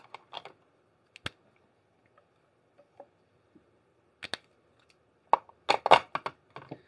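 Scattered short, sharp clicks and taps from hands handling small objects. A few single clicks come early, and a denser, louder cluster of taps runs from about five seconds in.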